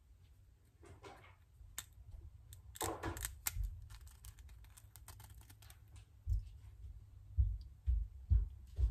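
Quail egg cutter snipping the top off a quail egg's shell: a few sharp clicks and two short scraping snips. From about six seconds in, a run of low dull thumps, roughly two a second.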